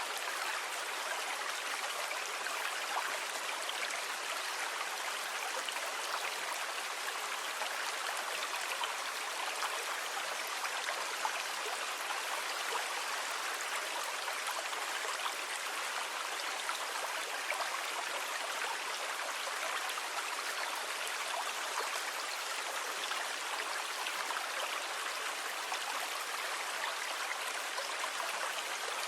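Sea water washing with an even, unbroken hiss, no single wave standing out.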